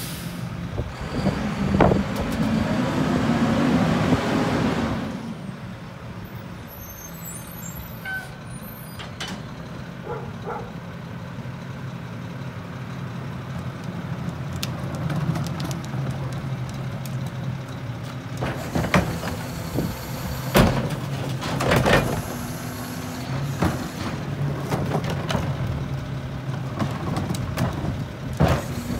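Idling diesel engine of a Mack rear-loader garbage truck, with a loud rush of noise for the first few seconds, then sharp knocks and bangs of recycling carts and bins being handled about two-thirds of the way through.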